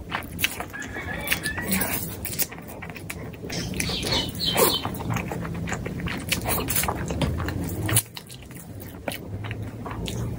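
Close-miked slurping and chewing of a big mouthful of instant noodles: wet mouth smacks and clicks coming thick and irregular, with a short squeaky slurp about four to five seconds in.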